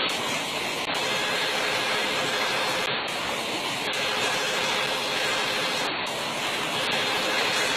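Steady rushing of a small, fast-flowing stream: an even, unbroken hiss of water.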